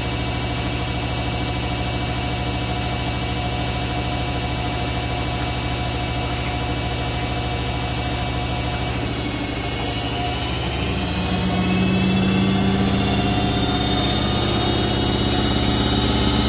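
Hoover A3308 Computer Control 1100 washing machine in its spin cycle: the drum turns with a steady motor hum, then about ten seconds in the motor speeds up, a whine rising slowly in pitch as it gets louder.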